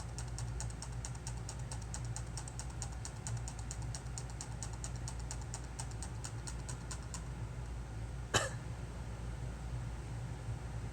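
A quick, even run of light clicks, about five a second, stops after about seven seconds. About a second later there is one sharper click. A low steady hum sits underneath.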